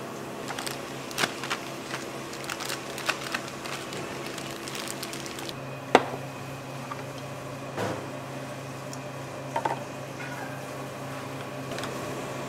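A spatula scraping and tapping inside a stainless steel bowl with a run of quick clicks, then a steel pot knocked down sharply on a cooktop, followed by a few lighter metal clanks, over a steady low hum.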